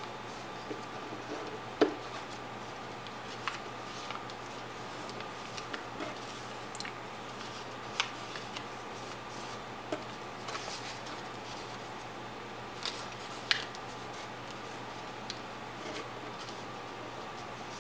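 Sheet of paper being folded and creased by hand: scattered short crinkles and taps, the sharpest about two seconds in and again about thirteen seconds in, over a steady background hiss.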